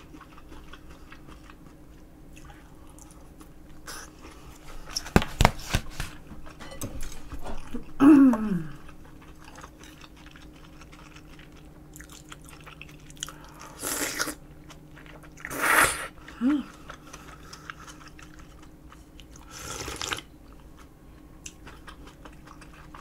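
Close-miked eating: chewing and crunching of fried pork cutlet and rice, with a brief falling vocal 'mm' about eight seconds in, then several loud slurps of kimchi udon noodles and broth later on.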